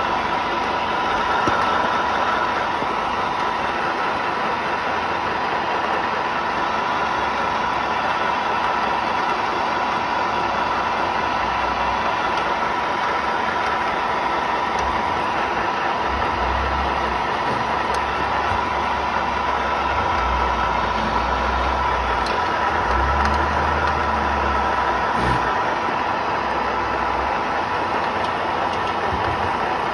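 STILER 3 kW pellet mill running steadily while pelleting pine sawdust, a constant mechanical noise with a steady whine near 1 kHz. A few low bumps come about halfway through.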